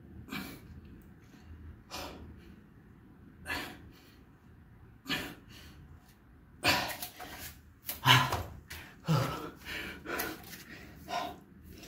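A man's forceful exercise breathing: sharp puffs out through nose and mouth, about one every 1.6 seconds, in time with dumbbell side-bend reps. About two-thirds of the way in the breaths turn faster and louder, into heavy panting.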